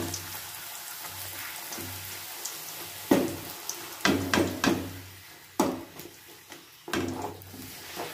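A maida puri deep-frying in hot oil in a steel kadai, a steady sizzle. A metal spoon knocks against the pan several times from about three seconds in, as the puri is pressed down so it puffs.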